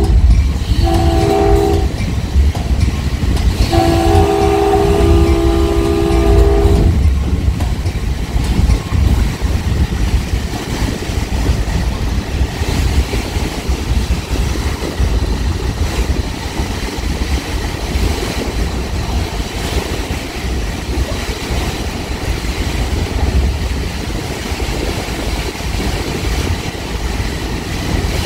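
Caltrain gallery train's horn sounding from the leading cab car, a chord of several steady tones. The tail of one blast ends about a second in, a short blast follows, then a long blast of about three seconds. After the horn stops, the train's steady low rumble on the track carries on.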